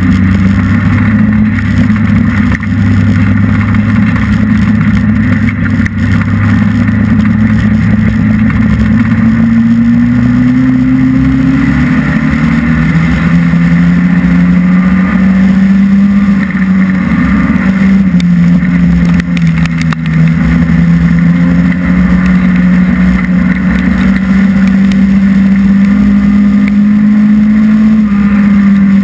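Hobby stock race car's engine running loud and steady, heard from inside the cockpit. Its pitch rises slightly about ten seconds in, drops a couple of seconds later, then holds with small changes.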